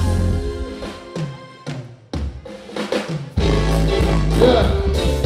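Live band on stage: the music breaks down to a few separate drum hits for about two seconds, then the full band with heavy bass drops back in about three seconds in.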